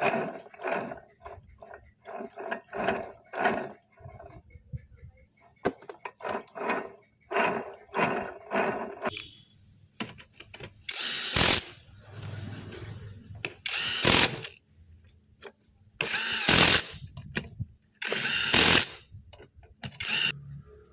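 Tool work on a Maruti gearbox during a bearing and oil seal replacement: a run of short strokes about twice a second, then five louder bursts about a second long each.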